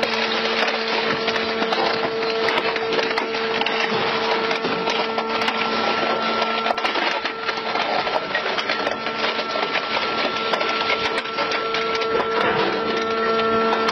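Rotating chipper head of a sawmill machine cutting into a log: dense crackling and splintering of wood over a steady machine hum.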